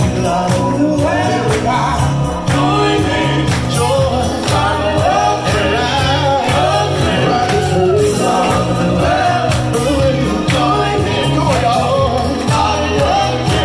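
Male soul vocal group singing live through a PA, a lead voice with backing harmonies over upbeat accompaniment with a steady bass line and drum beat.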